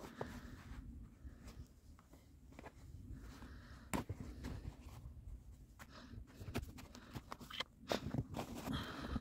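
Gear-handling noise: rustling of a jacket and a canvas hatchet cover, with scattered clicks and knocks as a tomahawk is taken out of the cover, a small cluster of them near the end, and light crunching of snow underfoot.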